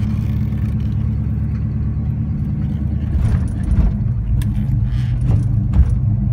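1970 Pontiac GTO's V8 engine running, heard from inside the cabin on the move: a steady low drone that gets a little louder about halfway through, with a few short clicks and rattles in the second half.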